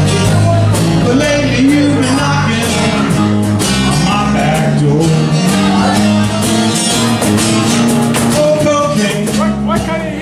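Live blues band playing: strummed acoustic guitars over a low bass line and a steady beat.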